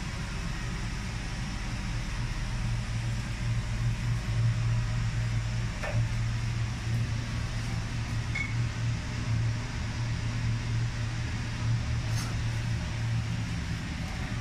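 Steady low machine hum with an even hiss of moving air, like a running fan or blower, broken by a few faint ticks.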